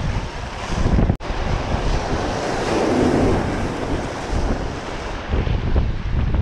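Surf breaking and washing against the blocks of a rock jetty, with wind buffeting the microphone. The sound cuts out briefly about a second in.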